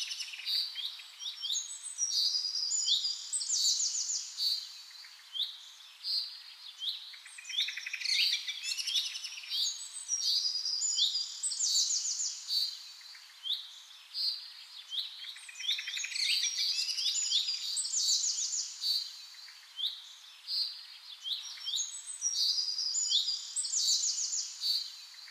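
Birds chirping and singing: many quick, high-pitched chirps and trilled phrases, in a sequence that repeats about every eight seconds.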